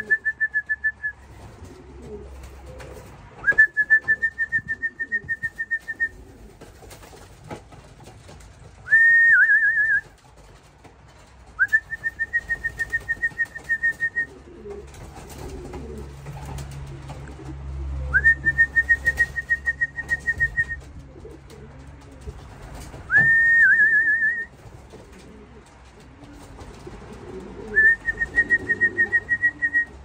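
A warbling whistle call, repeated about seven times every few seconds: each one swoops up sharply and then holds a high, fluttering note. This is a fancier's call to bring racing pigeons down to trap into the loft. Pigeons coo low underneath, mostly in the second half.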